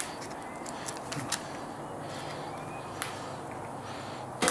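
Light clicks and crinkles from hands handling a plastic bacon packet, over a steady background hiss, with a sharper click near the end.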